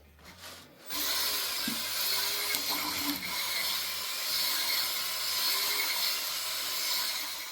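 Electric drill spinning a hone inside a brake wheel cylinder's one-inch bore, a steady grinding whir. It stops briefly at the start, starts again about a second in, and winds down near the end.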